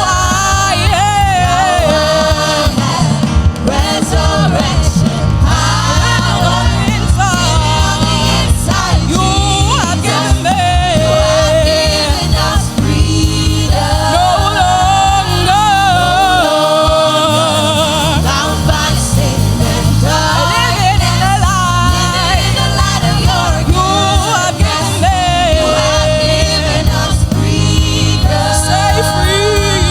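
Gospel worship song: a full band with steady bass under a lead voice singing drawn-out, ornamented lines.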